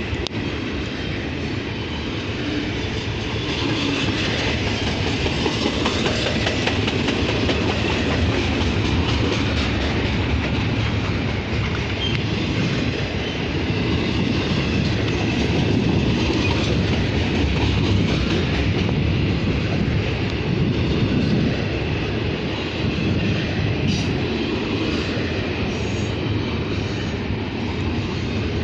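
A Norfolk Southern freight train rolling by: a steady rumble of wheels on rail that swells toward the middle and eases near the end.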